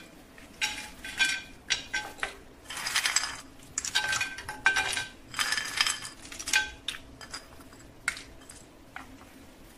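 Whole almonds and fingers clinking on a small ceramic plate and a glazed ceramic tajine dish as the almonds are picked up and set down one by one: an irregular string of short, slightly ringing clicks.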